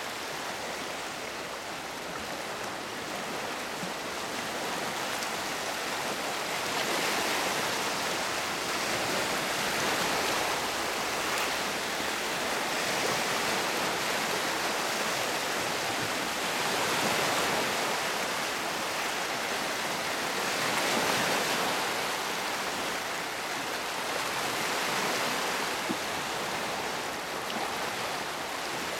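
Small lake waves washing over and around shoreline rocks: a steady rush of water that swells and eases every few seconds.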